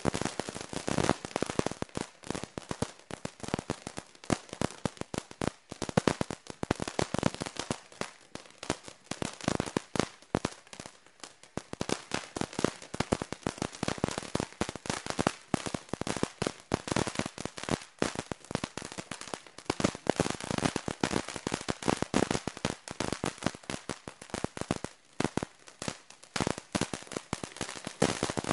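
Ground fountain firework burning, giving a dense, uneven crackle of rapid small pops and cracks as it sprays sparks.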